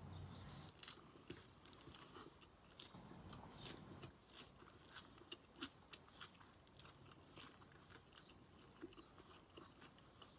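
A person chewing chow mein noodles, quiet and close: a steady run of small, soft mouth clicks and smacks.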